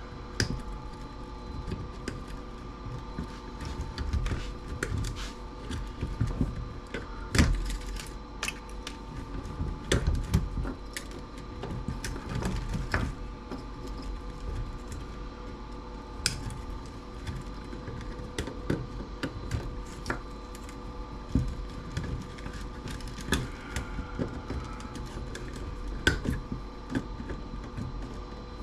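Wire cutters nipping jumper wires on a circuit board: irregular sharp snips and clicks, over a steady hum.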